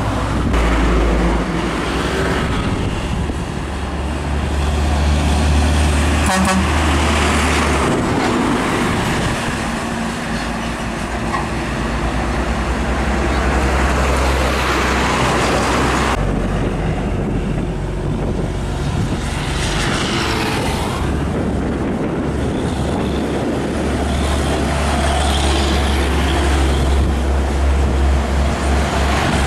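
Heavy diesel trucks driving past on a highway, one after another, with a steady loud engine rumble and tyre noise.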